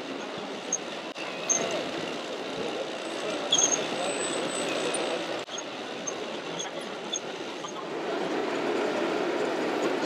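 Busy exhibition-hall hubbub: many people talking at once in a big hall, a steady murmur with no single voice standing out. A few faint, short, high chirps come through it.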